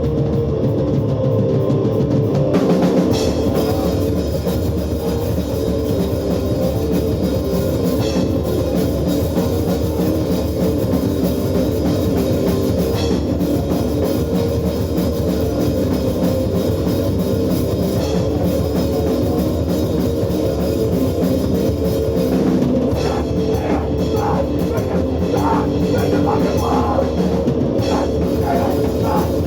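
Live hardcore punk band playing loud: a distorted electric guitar riff alone at first, then the drum kit and full band crash in about two and a half seconds in and keep going.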